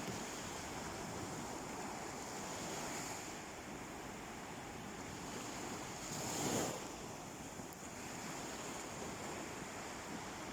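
Sea waves washing onto a beach, a steady surf hiss with one louder wave breaking about six and a half seconds in.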